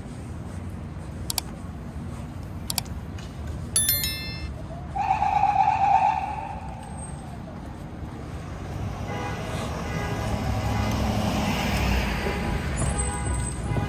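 City street ambience with a vehicle passing, swelling in the second half. Earlier come two sharp clicks, a brief metallic ring, and a loud held tone lasting about a second.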